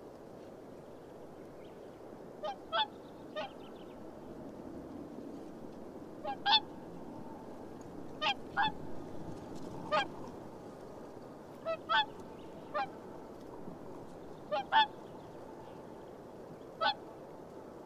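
Whooper swans calling: about fifteen short, bugling honks, often in quick pairs, every second or two.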